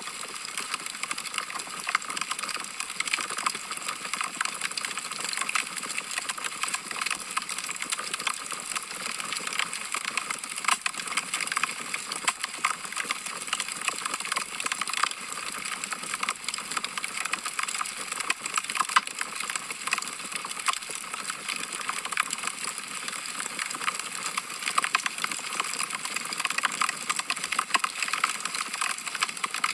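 Wood fire crackling in a fireplace: a continuous stream of small snaps and pops from burning logs, with a few louder pops now and then.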